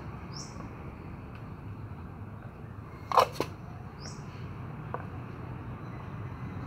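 Cats eating from plastic food containers, with a sharp double knock about three seconds in, a fainter click a little later, and a short high falling chirp twice.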